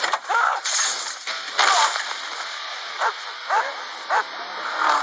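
A dog barking in an attack, about half a dozen short barks, with a man crying out in pain near the end.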